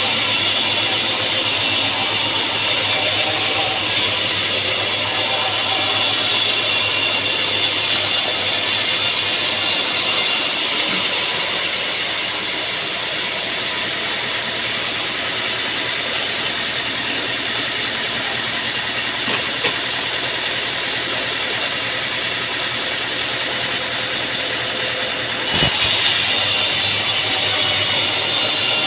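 Sawmill machinery running steadily with a mechanical rattle. The sound changes abruptly about ten seconds in and again near the end, with a short knock at the second change.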